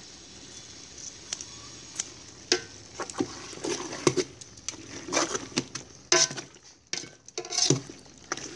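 Metal tongs and kitchen scissors working braised pork stomach in an aluminium pot: a few light clicks at first, then, from about two and a half seconds in, an irregular run of clattering and scraping against the pot as the pieces are stirred in their sauce.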